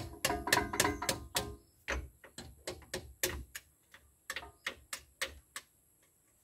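Quick, irregular metallic clicks and taps from hand tools and parts being worked on an old Toyota Land Cruiser BJ60's rear drum brake. The clicks thin out and stop about five and a half seconds in.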